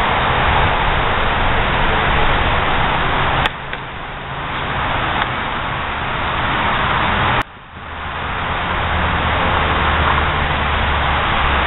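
Steady rushing background noise that drops out abruptly twice, about three and a half and seven and a half seconds in, then builds back up.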